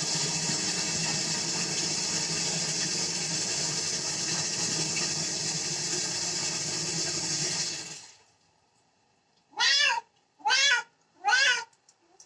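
Water running steadily from a tap or shower head, cut off about eight seconds in. After a short pause a cat meows three times in quick succession, each meow about half a second long.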